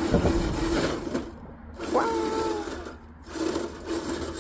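Electric motor and gear drivetrain of an RC rock crawler whining in short bursts as it is driven. The whine cuts out briefly about a second and a half in and again about three seconds in, and rises sharply in pitch near two seconds.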